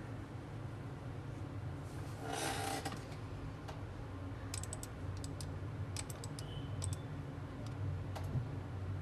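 Short runs of sharp clicks from working a computer's keyboard and mouse, starting about four and a half seconds in, over a steady low hum. A brief rustling noise a little after two seconds.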